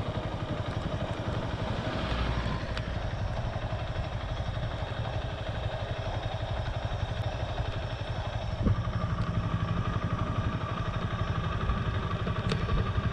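Motorcycle engine running steadily while riding, with a low throbbing exhaust note. About two-thirds of the way in there is a knock and the engine note gets louder.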